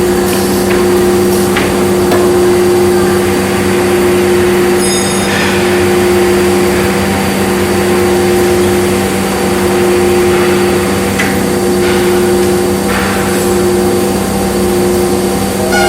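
KDT KN3408D CNC nesting machining centre running: a steady machine hum held at one pitch throughout, with a few brief clicks.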